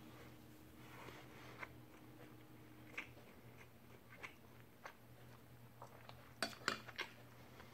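Metal spoon clinking and scraping against a ceramic plate while scooping fried rice: a few faint clicks, then a quick cluster of louder clinks about six and a half seconds in, over a faint low hum.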